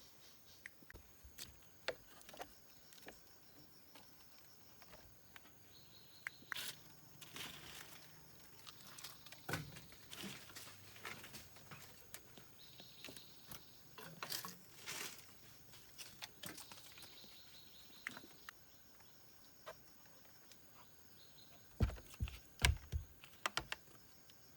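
Insects chirring steadily in the background, with scattered taps, rustles and knocks throughout, and a burst of heavier thumps about 22 seconds in.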